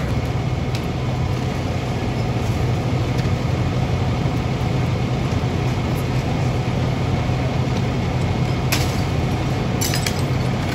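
Fire engine's motor running steadily at the fire scene: an even, low rumble. A couple of faint clicks come near the end.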